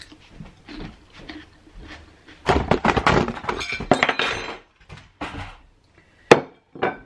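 Camera and things on the table accidentally knocked off: a clattering crash of about two seconds, starting a couple of seconds in, then two sharp knocks near the end.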